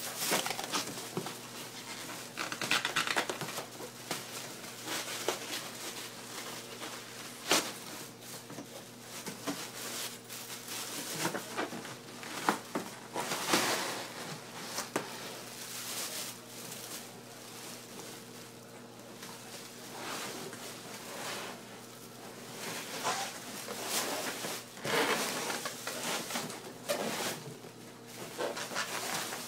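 Irregular rustling, crinkling and light knocks of packaging and skimmer parts being handled while the box is unpacked, over a faint steady hum.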